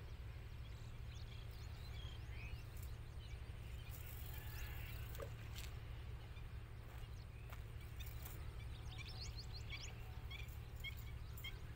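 Birds chirping and calling in many short, high notes over a steady low rumble, with a few sharp ticks.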